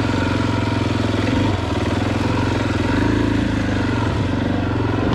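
KTM EXC 500 single-cylinder four-stroke dirt bike engine running at low, fairly even revs, with small rises and dips in engine speed.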